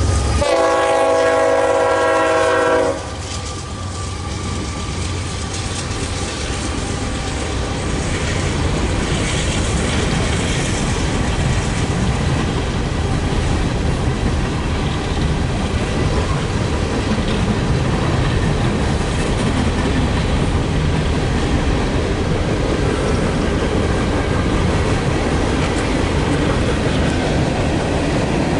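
A freight locomotive horn sounds one long chord for about two and a half seconds, then cuts off. After it comes the steady rumble and wheel clatter of an empty CSX coal train's cars rolling past, slowly growing louder.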